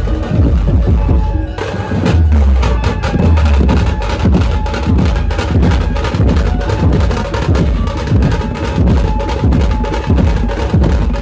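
Dhumal band music: fast, dense drumming with heavy bass. It follows a held-tone passage, with the drumming cutting in about a second and a half in.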